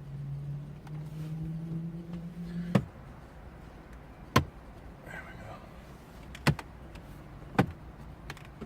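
Plastic dash trim being pressed back into place in a car interior: a few separate sharp clicks and knocks as the pieces snap in. A low steady hum under the start stops with the first click, about three seconds in.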